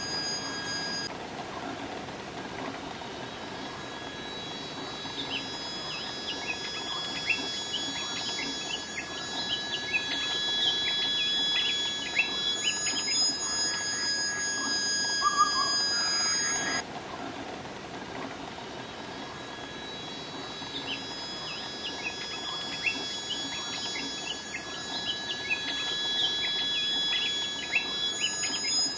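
Striated bulbul calling in quick runs of short falling chirps over the hiss of running stream water, with several steady high whining tones behind that cut in and out abruptly.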